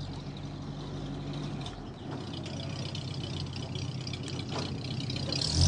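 Engine of a 1940s sedan running at low speed as the car reverses out of a driveway; it gets louder near the end as the car swings close.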